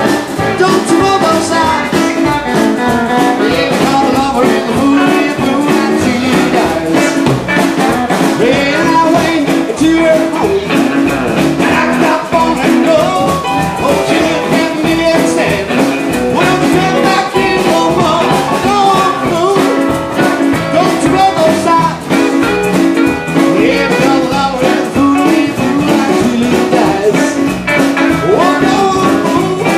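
Live blues band playing: a male singer sings over electric guitar, keyboard, upright bass and drums.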